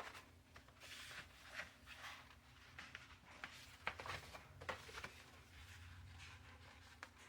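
Faint, scattered rustles and light taps of paper being handled, over a quiet low room hum.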